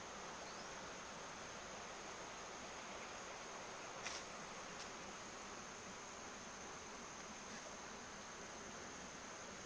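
Steady high-pitched drone of insects, with a short sharp click about four seconds in and a fainter one just after.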